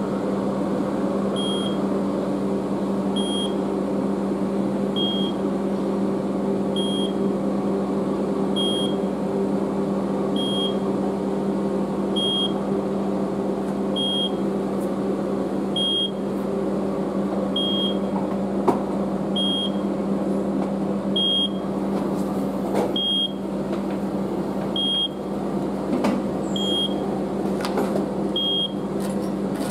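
A lifting machine runs with a steady hum while a short, high warning beep repeats evenly about every two seconds as it moves a glass panel on a vacuum lifter.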